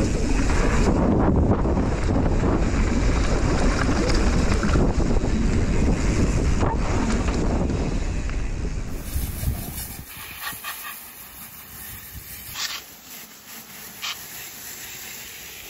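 Wind noise on a helmet-mounted camera and knobby mountain-bike tyres rumbling over a dirt trail on a descent. About nine seconds in it drops to a much quieter background with a few light clicks.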